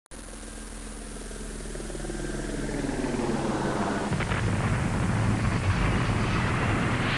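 Airplane crash sound effect: an aircraft engine drone starts abruptly and grows steadily louder, swelling into a deep rushing rumble.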